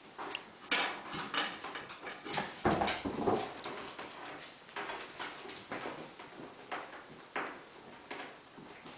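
Cairn terriers' claws clicking and scrabbling on a hardwood floor in irregular quick taps as they scamper about in play, with a louder scuffle about three seconds in.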